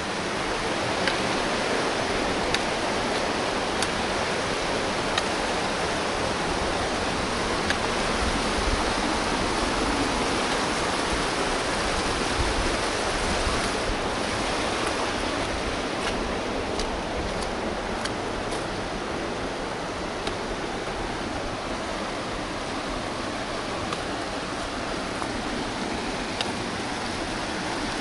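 A stream rushing steadily, a continuous even wash of water noise.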